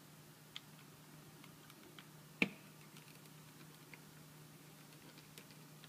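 Faint scattered clicks of a PlayStation 3 controller's plastic shell being handled after reassembly, with one sharper click about two and a half seconds in, over a faint steady hum.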